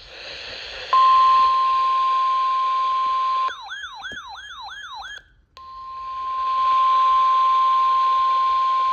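NOAA Weather Radio warning alarm tone: a loud, steady, high single-pitched beep near 1,000 Hz starting about a second in over a steady hiss. Midway it gives way for a moment to a warbling, siren-like tone sweeping about three times a second. After a brief dropout the steady tone resumes. The tone signals an emergency alert, here a severe thunderstorm warning.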